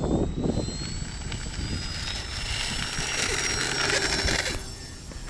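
Model Cessna 182's motor and propeller whining, the pitch rising over the first couple of seconds and then holding steady. A louder rushing hiss joins it about halfway through and cuts off suddenly near the end.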